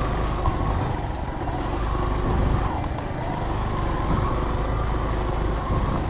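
Small motorcycle engine running steadily at low speed, heard from the rider's seat, with a low rumble and a faint wavering whine.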